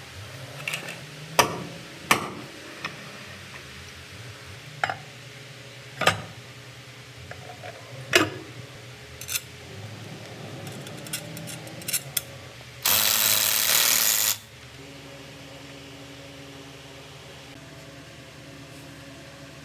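Heavy metal torque converter and gearbox parts being handled and set in place: a series of sharp, irregular metal clinks and knocks. Near the middle comes a loud hiss lasting about a second and a half, over a faint steady low hum.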